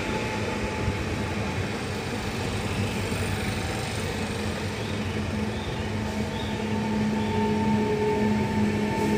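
Pesa 48WE electric multiple unit running past the platform as it pulls into the station: a steady rumble of wheels on rail with a steady electric whine from its drive.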